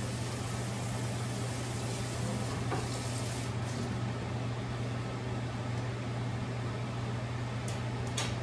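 Covered stainless-steel pan of vegetables simmering on the stove, an even hiss from under the lid over a steady low hum, with a couple of faint ticks near the end.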